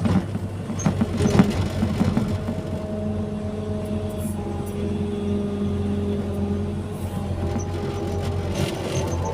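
Hydraulic excavator running while digging and shifting soil: a steady diesel engine drone with a hydraulic whine that steps up and down in pitch, and a few knocks near the start.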